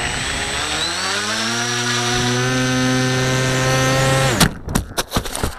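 Electric motor and propeller of a Techwing Tek Sumo FPV flying wing, heard through the wing's onboard camera, running at high throttle with a steady whine that slowly climbs in pitch. About four seconds in the pitch drops sharply as the motor winds down, followed by a few sharp clicks and dropouts.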